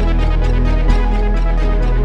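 Electronic instrumental music: sustained synthesizer chords over a heavy steady bass, with a beat struck about every 0.7 seconds.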